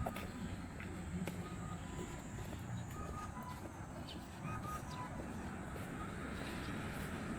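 Outdoor ambience: a steady low rumble with several short, high chirps and a few faint ticks.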